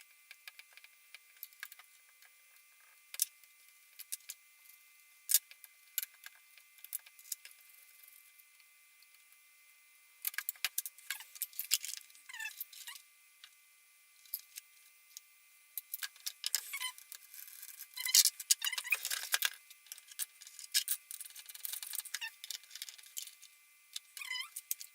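Scattered clicks, taps and rattles of hand tools and brush cutter parts being handled during assembly. The handling gets busier about ten seconds in and again from about sixteen seconds.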